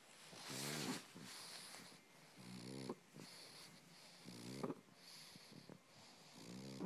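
A pug making a low, pitched purr-like rumble as it breathes while being petted, four short rumbles about two seconds apart with breathy hiss between them.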